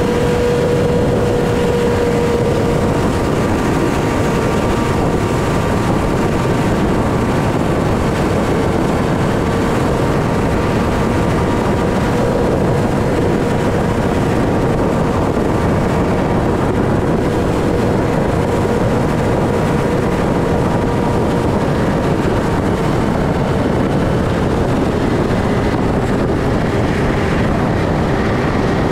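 Motorcycle engine running at a steady cruising speed, its note sinking slightly over the stretch, under a constant rush of wind and road noise.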